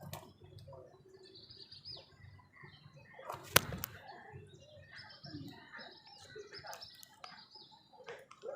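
Small birds chirping with short, high calls, and one sharp loud snap about three and a half seconds in.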